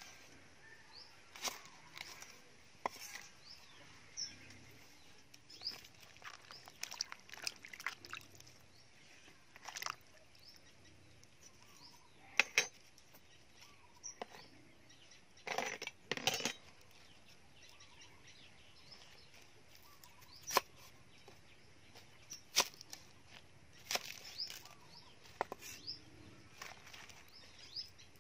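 Irregular sharp knocks and clicks of a cleaver on a wooden chopping board as banana flower is cut and the pieces are handled. Birds chirp faintly in the background.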